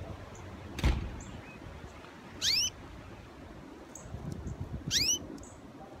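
A single knock about a second in, then two short rising chirps from a caged canary, a couple of seconds apart.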